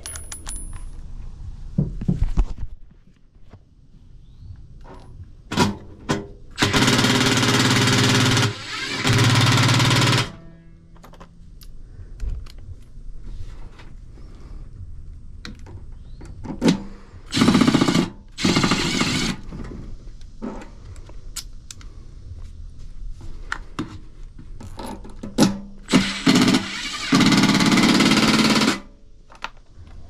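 Milwaukee M12 FUEL cordless impact driver with a nut-driver bit, driving bolts into a sheet-metal blower housing. It hammers in three main runs of one to three seconds each, with short taps of the trigger in between.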